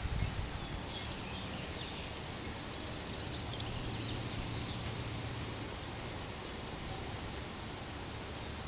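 Birds chirping in short, high calls over a steady outdoor background hiss; the chirps thin out after about six seconds.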